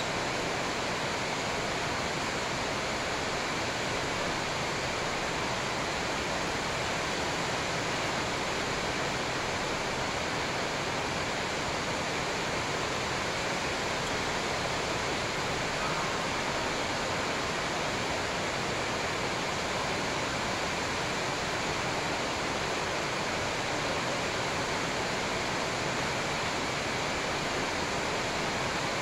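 A steady, even rushing hiss that does not change, with no distinct shuttle hits or voices standing out.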